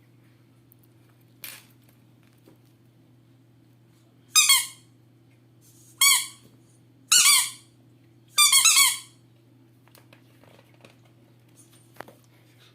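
A squeaky dog toy squeezed four times, sharp high-pitched squeaks with a pitch that rises and falls. The last squeeze is longer and squeaks in several quick pulses.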